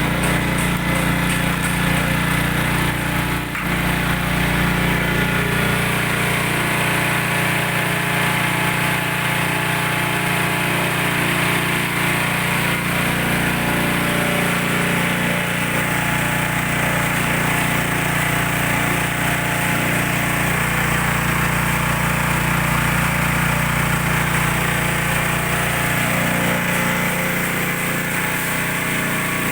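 Coconut milk pressing machine running steadily with a loud, continuous mechanical hum, with one brief knock about three and a half seconds in.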